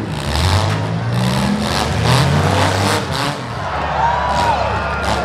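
Six-cylinder demolition derby car engines running and revving unevenly, the pitch rising and falling several times. A brief higher tone rises and falls about four seconds in.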